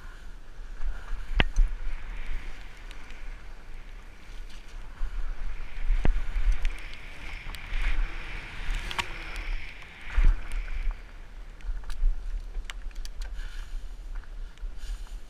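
A fat bike rolling fast down a wet dirt trail: its wide tyres hiss through the damp ground and the bike knocks and rattles over bumps, with a sharp knock about ten seconds in, all over a steady rumble of wind on the microphone.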